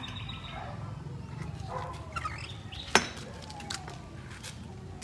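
Quiet yard ambience with faint bird chirps, and one sharp click about three seconds in.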